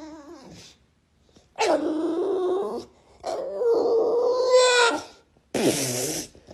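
A dog vocalising in three drawn-out whining calls, the middle one longest and rising in pitch near its end, the last one short with a dip and rise in pitch.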